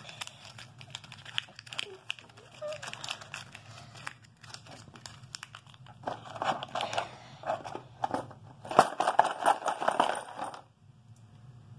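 A paper dollar bill crinkling as it is folded and pushed into a small cardboard money box, with scattered clicks and knocks as the box is handled. The rustling is busiest about six seconds in and again from about nine to ten and a half seconds, then stops.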